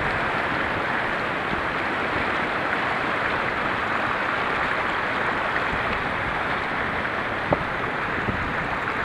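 Mountain stream rushing over rocks and small cascades, a steady wash of water. A single sharp click about seven and a half seconds in.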